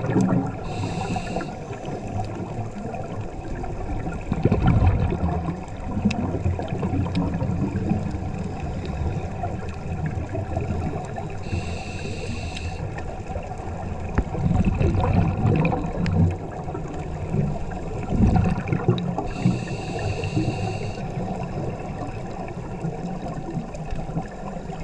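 Scuba breathing heard underwater through a regulator: three short hisses about eight seconds apart, and low bubbling surges of exhaled air bubbles between them, over a steady underwater wash.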